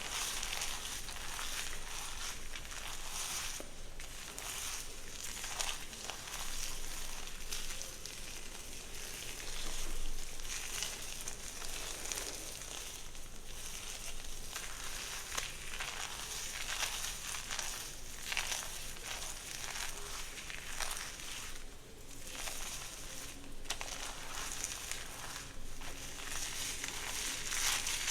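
Hair being worked close to the microphone: a steady crackling, rustling sound made of many irregular strokes.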